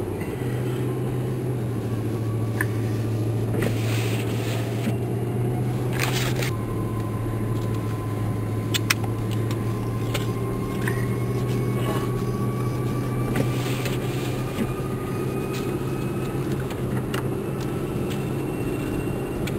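Vehicle engine running steadily, heard from inside the cabin while driving on a snowy road, with a faint whine slowly rising in pitch and a few short scrapes and crackles.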